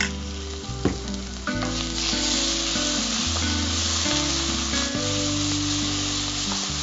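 Ground gongura (sorrel leaf) paste sizzling in hot oil with the tempering in a pan as it is stirred with a spatula, the stage where it is fried until the oil separates. A knock sounds about a second in, and the sizzle grows louder about two seconds in.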